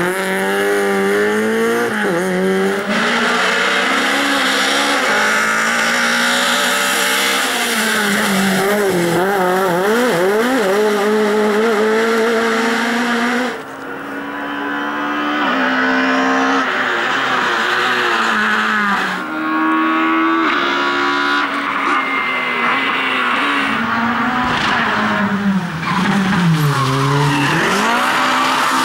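Lada rally cars' four-cylinder engines at hard throttle in a run of short clips, the engine note climbing and dropping again and again through gear changes and lifts, with tyre squeal from the cars sliding.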